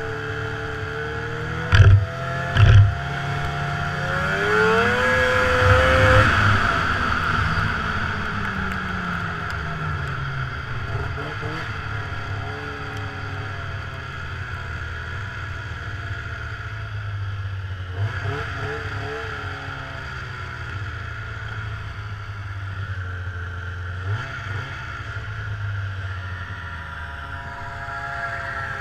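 Snowmobile engine running while the sled rides along, revving up about four seconds in and then easing back down to a steady cruise. Two loud knocks near the start, about a second apart.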